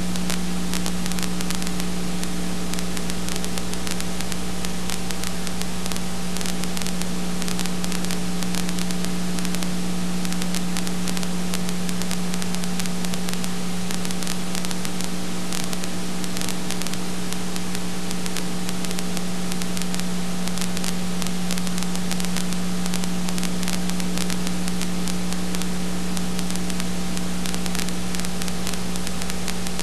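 Steady hiss and crackle with a constant low hum, unchanged throughout: the background noise of a silent home-movie transfer, with no sound from the filmed scenes.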